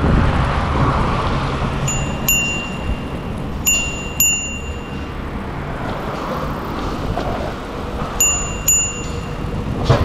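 Bicycle bell rung three times, each a quick double ding with a bright ringing tone, over steady wind and road noise from riding.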